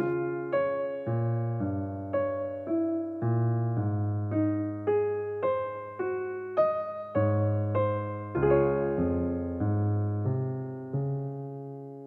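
Background music: solo piano playing a gentle melody of single struck notes, about two a second. The last note rings out and fades near the end.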